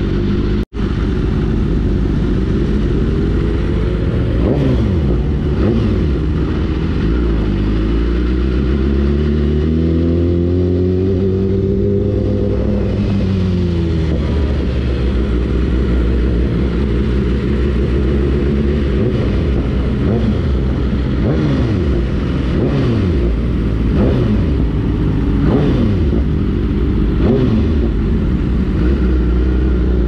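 BMW S1000RR and M1000RR inline-four engines running through Akrapovič exhausts while riding, revving up and down with the pitch rising and falling again and again. The longest sweep is in the middle. The sound cuts out for an instant just under a second in.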